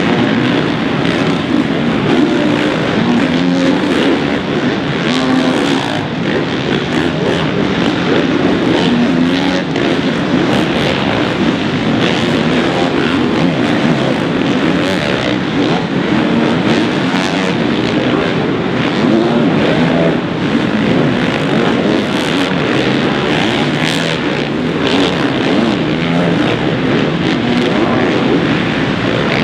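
Four-stroke motocross bike engines revving hard and dropping off again and again, the pitch climbing and falling as the throttle opens and shuts over the jumps.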